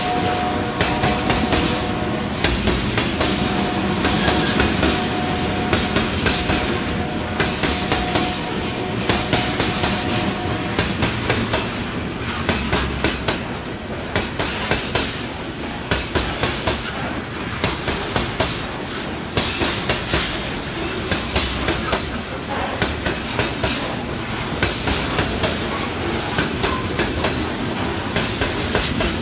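Train cars rolling past, wheels clicking over the rail joints in an irregular run of clacks over a steady rumble. A steady tone sounds over the rolling for about the first ten seconds, then stops.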